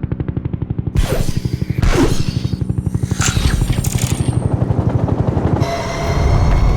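Bursts of automatic gunfire cracking over a fast, steady, pulsing vehicle drone, with a higher whine rising slightly near the end.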